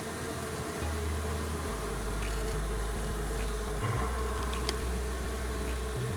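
Honeybees buzzing steadily around an open hive as they are fed sugar, with a low rumble underneath and a couple of faint clicks.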